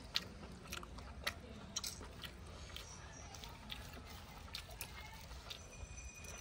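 A person eating by hand: faint chewing, with scattered soft clicks and squishes of fingers working rice and curry on a plate.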